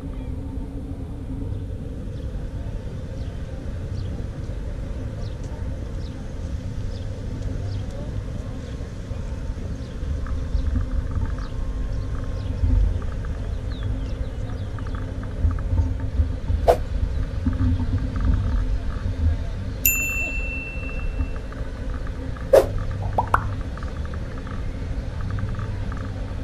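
Busy city street ambience: a steady low rumble of traffic with faint scattered voices. Two sharp knocks stand out, and about twenty seconds in a single high whistle sounds for about a second.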